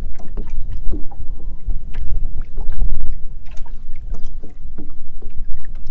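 Strong wind buffeting the microphone with a heavy, uneven low rumble, and small waves slapping irregularly against the hull of a fishing boat.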